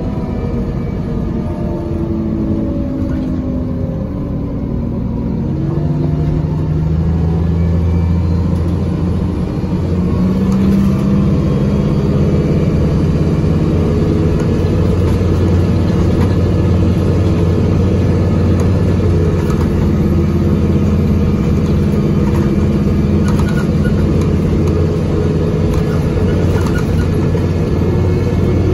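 Iveco Tector six-cylinder diesel of a Heuliez GX117 L bus, heard from inside the cabin, running with a holed exhaust and its Allison automatic gearbox stuck in first gear. The engine slows at first, revs up again about five seconds in, and holds high revs steadily from about ten seconds in.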